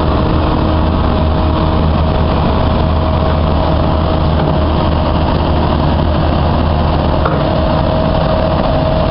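Diesel engine of a 2004 Kobelco SK135SR excavator running steadily while the machine is being operated, with a thin steady whine above the low engine hum.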